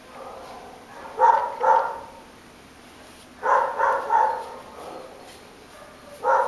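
A dog barking in short runs: two barks, a pause, three barks, then more barking beginning near the end.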